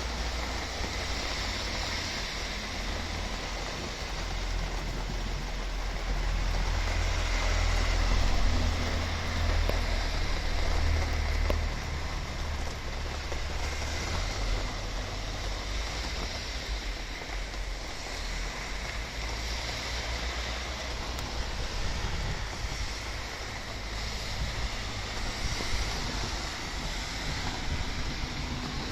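Storm wind gusting, buffeting the microphone with a deep rumble under a steady rushing hiss; the gusts are strongest about six to twelve seconds in.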